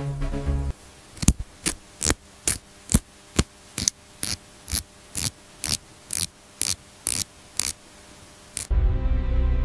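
A run of about fifteen sharp, dry clicks, evenly spaced at roughly two a second, over a faint hum. Background music cuts off just before the clicks and returns with a low drone near the end.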